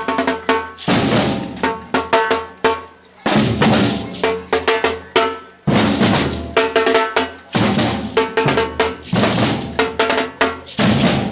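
Batucada percussion ensemble playing a samba rhythm on drums, with several brief breaks where the drumming stops and comes back in.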